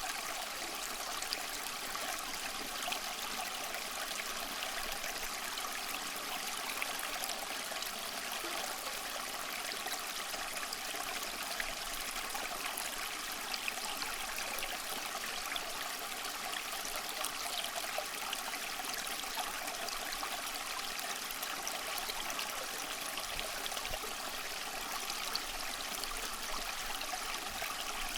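Stream water flowing steadily, a continuous trickling rush with small scattered splashes.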